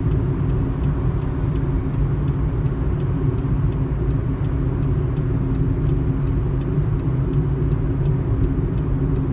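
Steady low road and engine hum heard from inside a car cruising on a highway. A faint regular tick sounds about three times a second.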